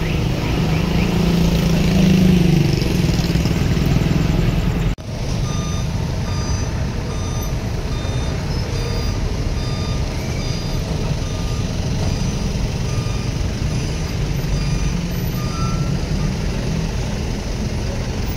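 A heavy vehicle's diesel engine runs close by. After a cut about five seconds in, a reversing alarm beeps steadily, about three beeps every two seconds, over a low engine rumble.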